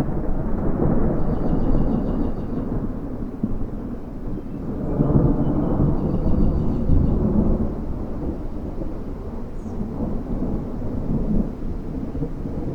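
Rolling thunder: a long, deep rumble that comes in sharply at the start, swells again about five seconds in, then eases into a lower continuing grumble.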